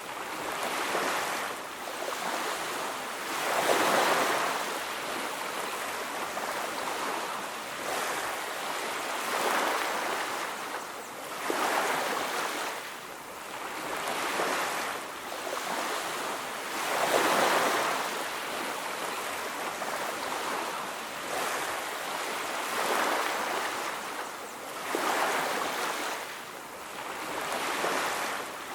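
Ocean surf: waves breaking and washing up a beach, swelling and falling away every few seconds as one wave follows another.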